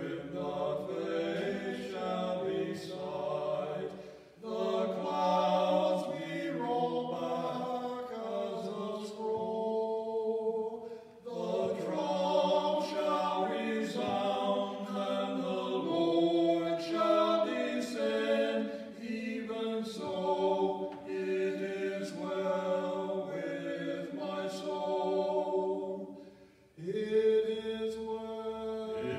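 Two men singing a hymn together without accompaniment, pausing briefly between phrases three times.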